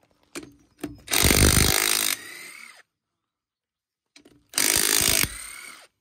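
Cordless impact wrench (rattle gun) hammering ute wheel nuts loose, in two bursts of about a second each, the motor whine falling away after each burst. A few light clicks come just before the first burst.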